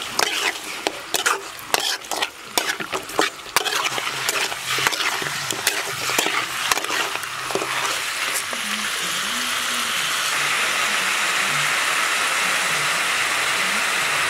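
Metal spoon stirring raw chicken pieces in a metal kadai, clinking and scraping against the pan, over chicken frying with a steady sizzle. The stirring clicks die away after about eight seconds, and the sizzle grows louder and even from about ten seconds in.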